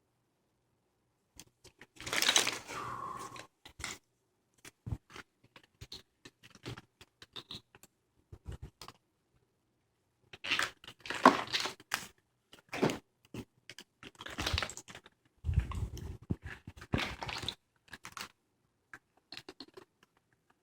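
2002 Subaru WRX wiring harness being handled, its plastic loom and connectors rustling, crinkling and clicking in irregular bursts with short pauses. The bursts are louder around two seconds in and again past the middle.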